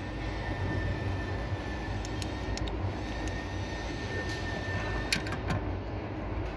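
Steady low rumble of background noise with a faint steady tone, and a scattered series of short clicks and taps from parts being handled during reassembly, the sharpest about five seconds in.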